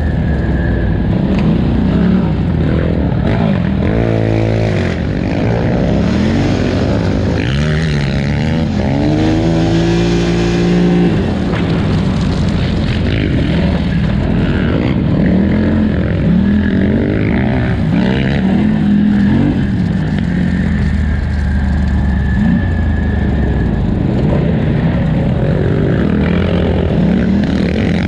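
Polaris Scrambler 1000 XP ATV engine running hard, its revs rising and falling again and again as the throttle is opened and closed.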